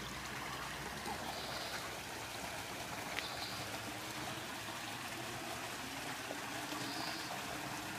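Steady running, trickling water.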